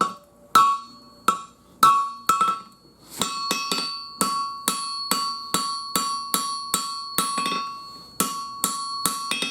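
Hand hammer striking hot 5160 steel on an anvil, each blow ringing clearly. The blows come about one every half second at first, then from about three seconds in speed up to roughly three a second, with the anvil ringing on between them.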